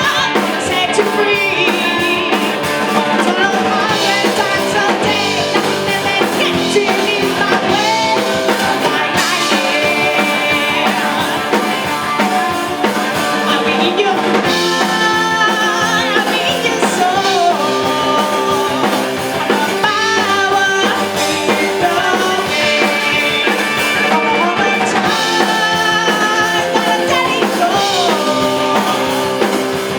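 A rock band playing a song, with drum kit, guitar and a voice singing.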